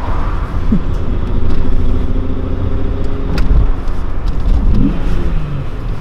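Volkswagen VR6 six-cylinder engine in a Golf Cabrio pulling on the road, heard from inside the cabin. Its note rises gradually, and there is a sharp click about three and a half seconds in.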